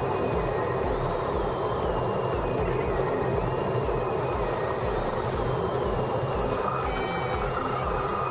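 Single-engine Cessna's piston engine and propeller running steadily at low power on short final, heard from inside the cockpit with airflow noise. A faint high tone glides up and down over it throughout.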